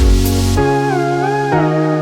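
Electronic background music: a beat with dropping bass hits stops about half a second in, giving way to a held bass note under a gliding, theremin-like lead melody.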